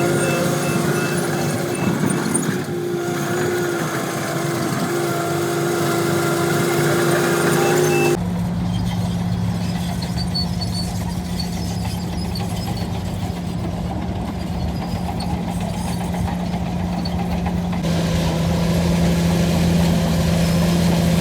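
Heavy diesel engine of a Hyundai earthmoving machine running steadily under work. About eight seconds in, the sound switches abruptly to a lower, steadier hum, and it shifts again slightly near the end.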